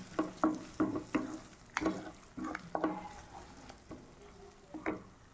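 Wooden spatula scraping and stirring eggs frying in a non-stick kadai: a string of short, irregular strokes, about two or three a second, growing sparse near the end.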